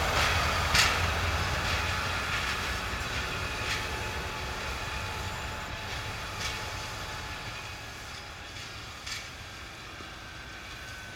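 TEP70 diesel locomotive (V16 diesel engine) and its rail flaw-detector car running away, the low engine rumble and wheel noise fading steadily as the train recedes. Occasional sharp clicks of wheels passing over rail joints, the loudest about a second in.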